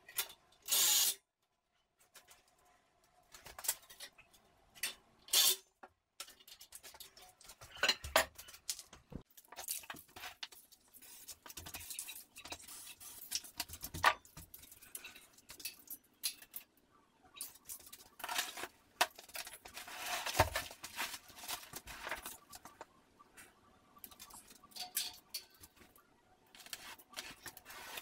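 Drywall work by hand: irregular clicks, knocks and short scraping sounds, with a few brief louder scrapes.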